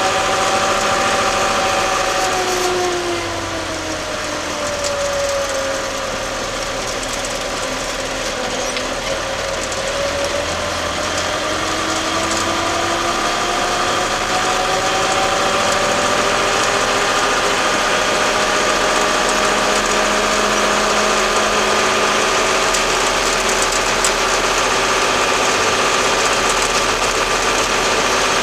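Case 885XL tractor's diesel engine running under way. Its engine speed drops a few seconds in, then rises back over the next several seconds and holds steady.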